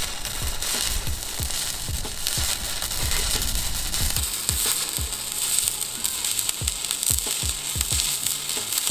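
Stick-welding arc from a 2.5 mm rutile electrode at 60 amps on 2 mm square steel tube, run from an EWM Pico 160 cel puls inverter: a steady crackling hiss with irregular low pops.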